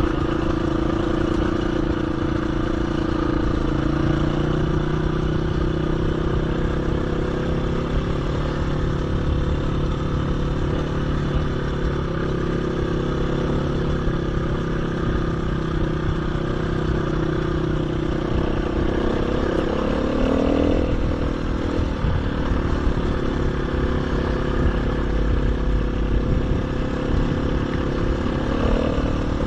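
KTM 350 EXC-F trail bike's single-cylinder four-stroke engine running at steady riding revs, heard from on the bike. The engine note changes briefly about twenty seconds in and again near the end.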